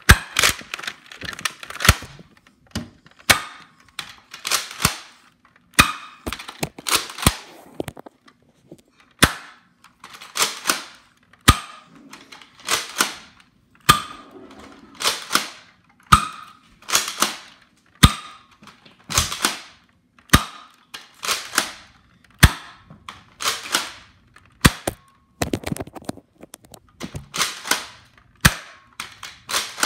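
Nerf foam-dart blaster fired over and over, each shot a sharp pop with a short rush of air, about one a second and sometimes two in quick succession.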